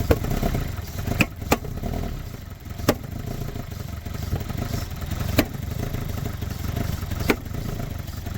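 A 2002 Toyota Corolla's 1.8-litre four-cylinder engine running rough at part throttle, the poor running of a vacuum leak. A handful of sharp clicks stand out at uneven intervals.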